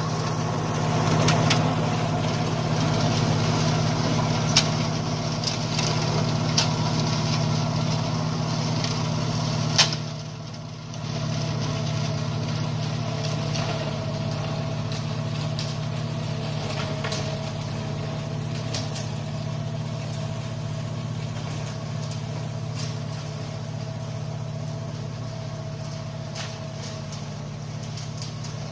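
New Holland TCE 50 tractor's diesel engine running steadily with an Agricom flail mower turning behind it, mulching weeds; the sound grows gradually fainter as the tractor moves away. A single sharp knock about ten seconds in.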